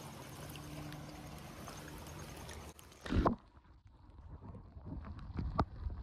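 Steady rush of creek water with wind on the microphone, broken by one loud thump about three seconds in, followed by a few light knocks.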